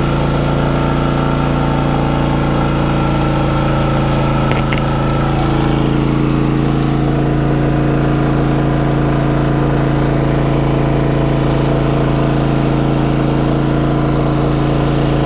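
Westinghouse iGen 4500 DF dual-fuel inverter generator running steadily on propane close by, its engine note shifting slightly about six seconds in.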